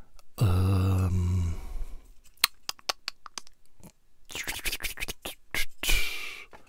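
A man's brief wordless hum, then a run of sharp clicks and small knocks as the plastic parts of a Bandai 1/144 AT-AT kit are handled and worked apart, with a short hiss near the end.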